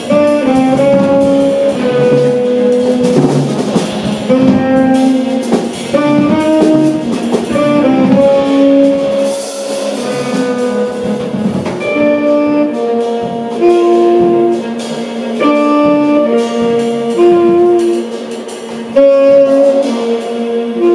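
Live jazz quartet playing: saxophone and bowed cello hold long, slow melodic notes over electric guitar and a drum kit with cymbals.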